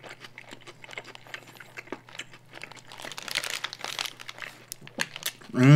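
Paper burger wrapper crinkling in the hands, with small clicks of chewing a mouthful of burger. A man's voice starts near the end.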